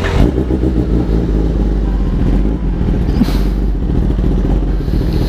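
Kawasaki ZX-10R's 998 cc inline-four engine, fitted with an Austin Racing aftermarket exhaust, running at idle with a steady, deep rumble.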